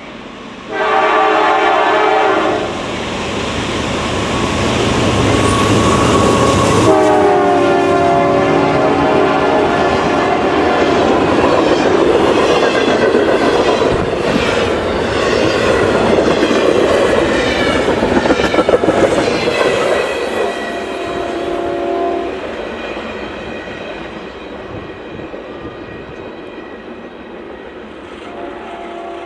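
Diesel freight locomotive's air horn sounding a chord in several blasts as the train comes by. Between the blasts the engines and wheels rumble, loudest about two-thirds of the way through, with wheels clicking over the rail joints.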